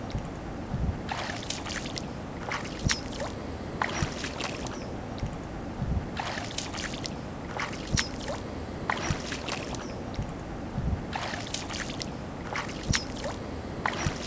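Bare feet wading through shallow muddy water, splashing and sloshing in bunches of steps, over a steady background hiss.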